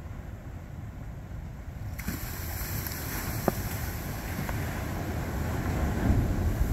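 Ocean surf washing in the dark, with wind buffeting the microphone; the wash swells from about two seconds in and is loudest near the end. A single sharp click about halfway through.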